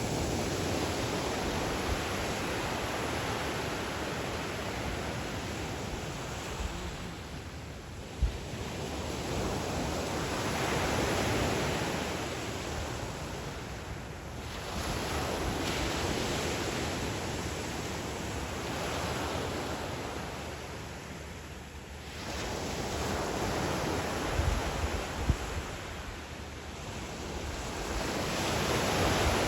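Black Sea waves breaking on the shore, the surf swelling and fading every several seconds. A few brief thumps, likely wind buffeting the microphone.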